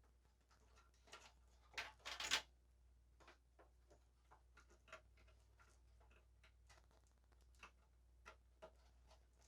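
Faint scattered clicks and rustles of plastic cable connectors being handled while a SATA power cable is plugged into an SSD inside a PC case, with a louder clatter of clicks about two seconds in.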